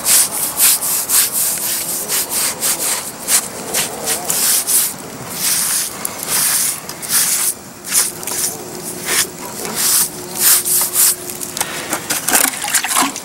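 Sponge rubbed over a fresh cement patch on a chimney, making rough scraping strokes about two a second.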